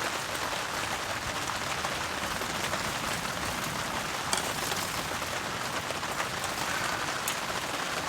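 Heavy rain falling steadily on a tarp, with a couple of sharp ticks from drops, one about halfway and one near the end.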